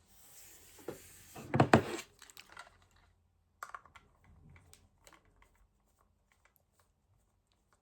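Handling noises from plastic toys or packaging: a short burst of rustling and clatter about a second and a half in, then a few faint clicks, fading to near quiet.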